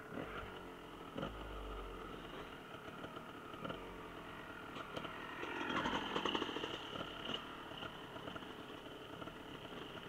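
Off-road motorcycle engines running, growing louder for a moment just past halfway through.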